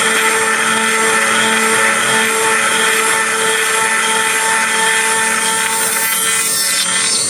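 2.2 kW spindle of a CNC gantry mill running steadily while its end mill cuts the heatsink blank in a trochoidal toolpath: a steady whine with a few held tones over a dense cutting noise. Near the end, high whistling tones sweep in pitch.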